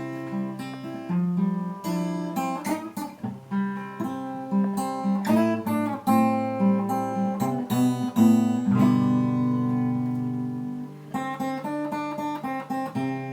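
Acoustic guitar playing the instrumental introduction to a song, chords struck one after another and left to ring.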